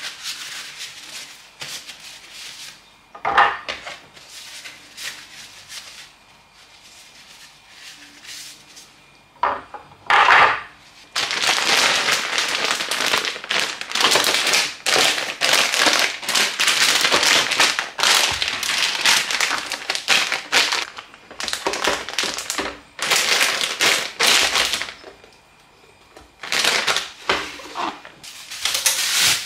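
Crinkly plastic snack bags and packaging rustling and crackling as they are handled and moved about, in long noisy stretches through the second half, after a quieter start with two sharp knocks.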